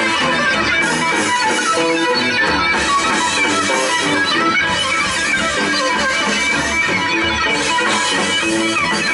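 Live instrumental rock from an electric guitar, bass and drums trio, with the electric guitar playing a busy line full of short notes and pitch bends over the bass and drums.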